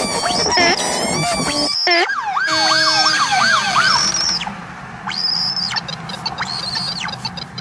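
A dense layer of warbling, squealing tones cuts off abruptly about two seconds in. A police car siren follows in fast repeating rise-and-fall sweeps over road noise, then gives way to high wavering tones.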